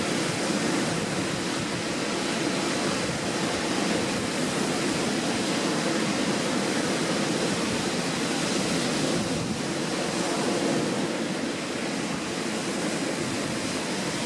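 Strong wind rushing over the microphone, a steady noisy roar that gets past the mic's built-in wind protection.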